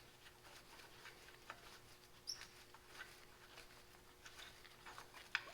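Near silence with faint, scattered light clicks and ticks, and one sharper click near the end.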